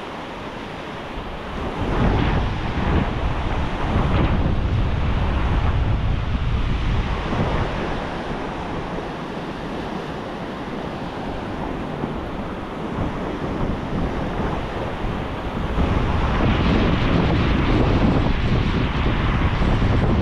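Ocean surf washing on a beach with wind buffeting the microphone; the wind gusts swell about two seconds in and again near the end.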